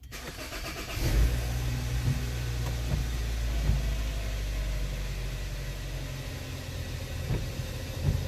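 2011 Hyundai Sonata's four-cylinder engine started by push button: it cranks briefly, catches about a second in with a short flare, then settles into a steady idle.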